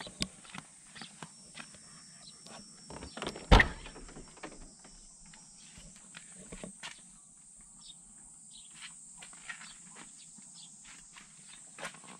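Footsteps and small taps and rustles of handling, with one sharp, loud clunk about three and a half seconds in as the car's door is opened.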